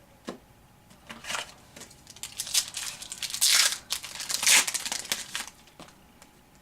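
A trading-card pack wrapper being torn open and crinkled by hand, in a run of rustling bursts that peak twice about halfway through.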